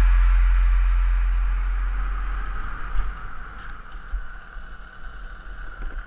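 Background music with held low notes fades out over the first two seconds. It leaves a steady rushing noise from the snowmobile pulling ahead and wind on the action camera's microphone.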